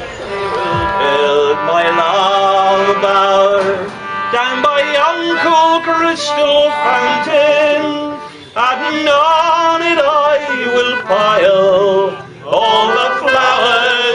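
Music with voices singing a tune, broken by two short pauses, one past halfway and one near the end.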